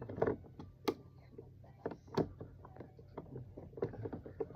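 Hand screwdriver driving a tight screw for a grab bar's mounting plate: irregular clicks and knocks, several in a few seconds, as the screw is turned by hand.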